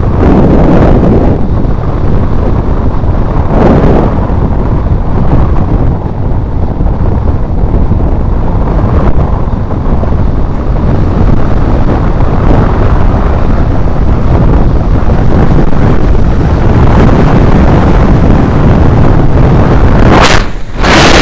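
Wind buffeting the microphone of a camera carried by a mountain biker riding down a paved road at speed. It is a loud, steady rumble, with brief harsher gusts about four seconds in and near the end.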